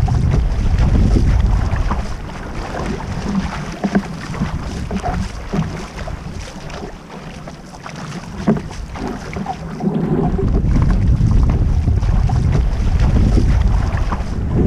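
Wind buffeting the microphone in strong gusts, heaviest at the start and again from about two-thirds of the way in. In the calmer middle, water splashes from a prone paddleboarder's arm strokes and chop slapping the board.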